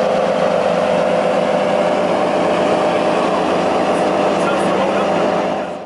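Lamborghini Aventador LP720-4 Anniversario Roadster's V12 idling steadily, fading out at the very end.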